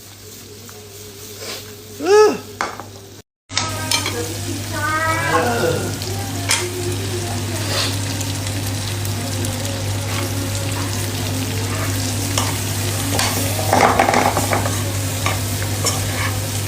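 Beef frying in sambal in a pan and being stirred, a steady sizzle with scattered clicks of the stirring. The sizzle becomes louder after a brief break about three seconds in, and a short rising-and-falling pitched call is heard about two seconds in.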